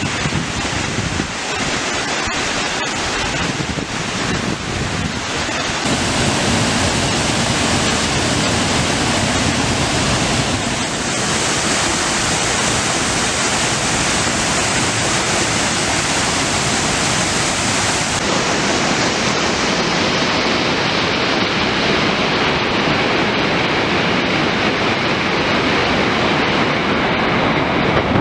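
Waterfall on the Río Mamey: a steady rush of falling, churning water. It grows louder about six seconds in and turns duller after about eighteen seconds.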